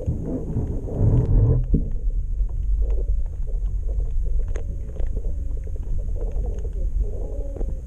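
Underwater sound picked up by a submerged action camera: a low, steady rumble with many scattered short clicks, after a louder rushing noise in the first second and a half.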